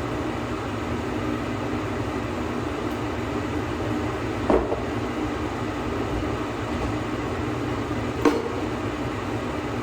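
A steady mechanical hum and rumble, with two short knocks about four seconds apart.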